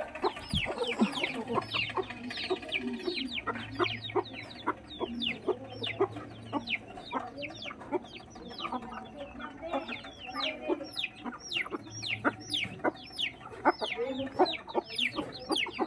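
A flock of chickens feeding: chicks peep continuously in quick, high, falling notes, several a second, over the lower clucking of the adult hens and roosters.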